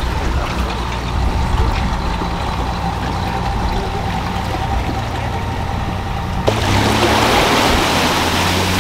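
An engine idling steadily. About six and a half seconds in, the sound switches to water gushing and streaming off a boat trailer as the tow vehicle pulls it out of the water, its engine running with a slightly rising pitch.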